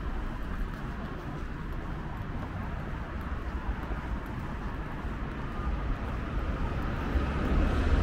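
City street traffic: a steady low rumble of vehicles that swells toward the end as one comes closer.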